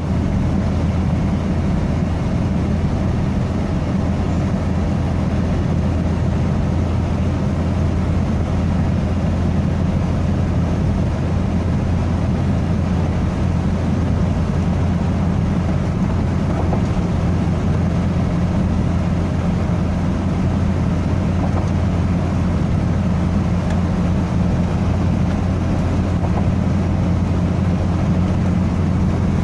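Car driving at a steady speed, heard from inside the cabin: an even, unbroken low drone of engine and road noise.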